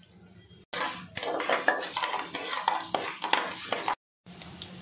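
Perforated metal ladle scraping and clinking against the bottom of a metal pressure cooker while stirring mustard seeds and dals in hot oil: a rapid clatter from just under a second in that cuts off abruptly near the end.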